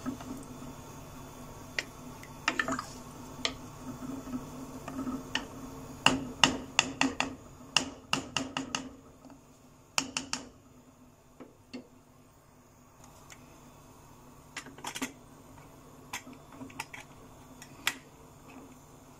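A cooking spoon stirring in a pressure cooker pot and knocking against its metal sides: a run of sharp clicks and taps, thickest about six to nine seconds in, then scattered. Near the end the pressure cooker lid is set on and clicks into place.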